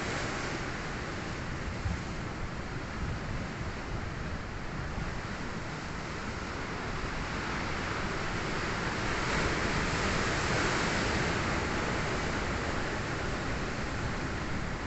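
Sea waves breaking on rocks, a steady wash of surf that swells louder about two-thirds of the way through as a bigger wave crashes. Wind rumbles on the microphone underneath.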